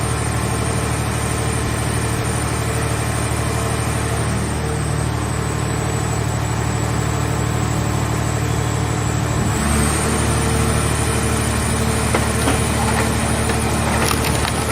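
Car scrap baler's power unit running steadily with a low hum and a high whine. About nine and a half seconds in its note shifts, and a few sharp clicks or knocks come near the end.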